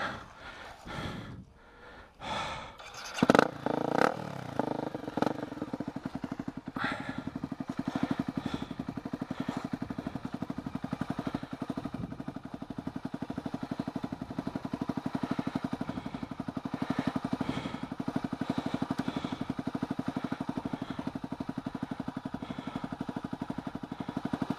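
A dirt bike pulls up close, with a loud burst of engine noise and clatter about three seconds in. It then idles steadily with an even rapid pulse.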